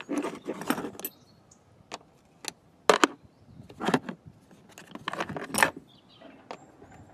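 A set of steel Allen keys in a fold-out holder clinking and rattling as it is handled to find the right size for the bolts. The sound is a scattered run of sharp metallic clicks and clinks, the loudest about three, four and five and a half seconds in.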